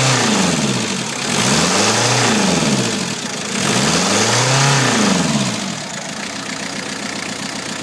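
Chrysler Voyager 2.5-litre turbodiesel engine revved up and back down three times in quick succession, then settling to a steady idle about six seconds in.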